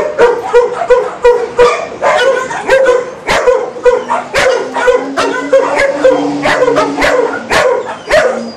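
Dogs barking over and over, short sharp barks at about three a second.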